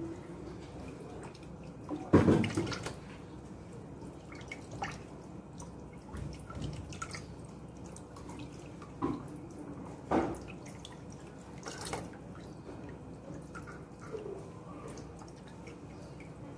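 Thin stream of water from a kitchen tap running over raw chicken in a stainless steel sink as the pieces are rinsed and rubbed by hand, with a few sudden louder splashes as the meat is handled, the loudest about two seconds in.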